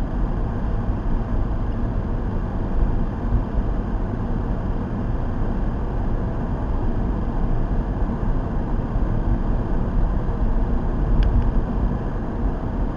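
Steady low rumble of road and engine noise inside a moving car's cabin, picked up by a dash cam's built-in microphone.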